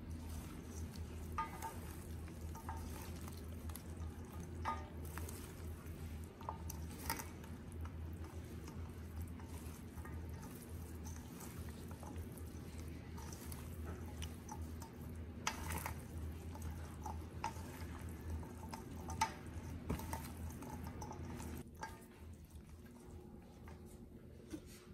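Gloved hands tossing a dressed lotus-stem salad in a stainless steel bowl: irregular wet squishing and rustling with small clicks, over a steady low hum. It grows softer near the end.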